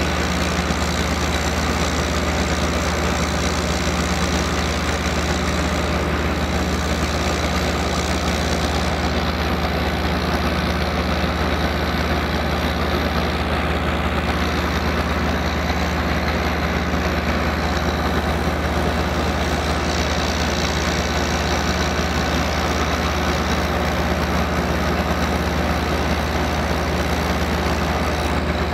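100 kW biogas generator set's gas engine running steadily, a constant low drone that does not change in pitch or level.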